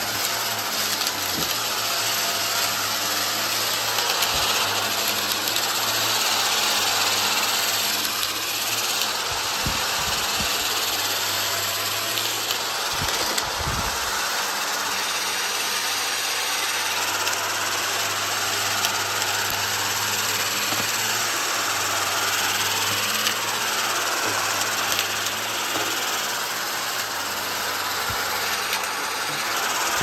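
Upright vacuum cleaner running steadily on carpet, its motor giving a constant whooshing hum, with a few short knocks and rattles of debris being picked up, the strongest about halfway through.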